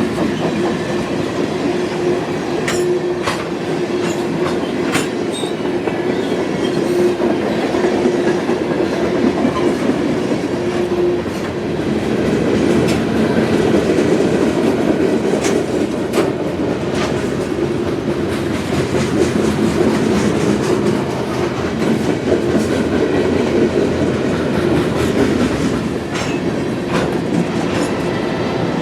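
Freight train cars rolling past, wheels clicking and clacking over the rail joints over a steady rumble, with a steady tone that comes and goes.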